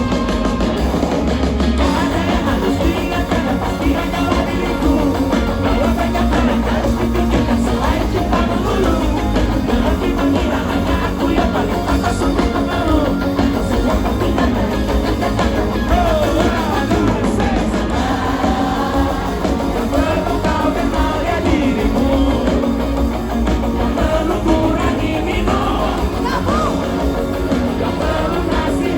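Live band playing a rock-style song with a sung lead vocal over drums, bass and guitars, loud and steady.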